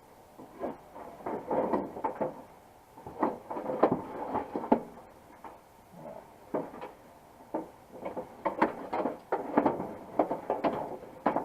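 Window regulator knocking and scraping against a Silverado door's inner sheet metal as it is worked through the opening and rotated into place: a string of irregular clunks and rattles.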